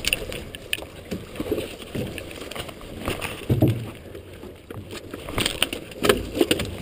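Muffled, irregular knocks, thumps and rustles of a salmon set net and fish being handled aboard a small boat, heard through a waterproof camera case. A heavier thump comes about halfway through and another near the end.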